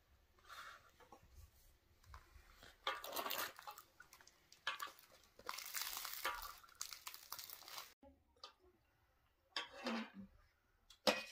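Milk ladled from a metal pot and poured into glass cups: several splashing pours, the longest lasting a couple of seconds, with a few sharp clinks of ladle and glass near the end.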